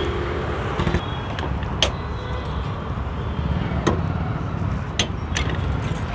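Steady traffic rumble of a busy street, with a few sharp metal clinks of a serving spoon against steel bowls.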